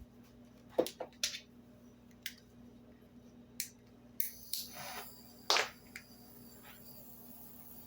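A scattered series of sharp clicks and taps, with a short hiss about four seconds in, from small tools being handled while bubbles are popped on a freshly poured acrylic paint surface.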